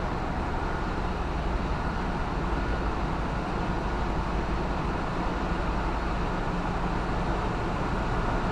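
Steady machinery drone in a ship's engine room: a continuous low hum with an even hiss above it, from the running engines and plant, unchanged throughout.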